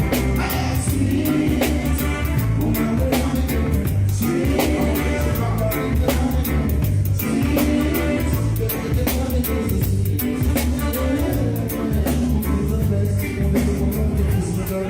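Live reggae band playing: a heavy bass line and a drum kit keep a steady beat under guitar, with singing over it.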